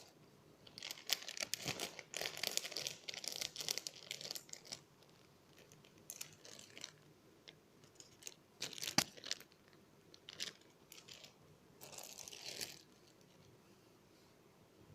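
Crinkling, crunching handling noise in several bursts, a long one at the start and shorter ones later, with a sharp click about nine seconds in.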